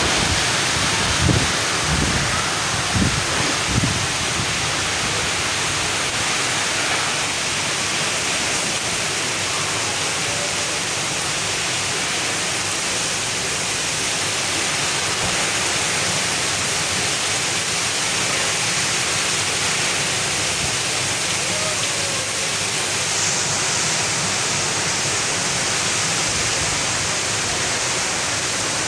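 Heavy rain pouring down in a windstorm: a steady, loud hiss of rain. In the first few seconds a few gusts of wind thump on the microphone.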